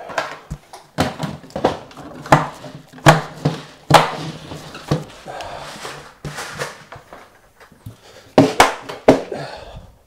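Coffee gear and a bag of beans handled on a kitchen counter: a run of sharp knocks and clatter at uneven intervals, with some rustling in the middle.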